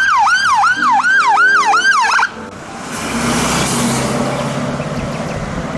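Electronic siren wailing in quick falling sweeps, about three a second, for about two seconds. Then it gives way to a steady hissing, rushing noise with a low hum.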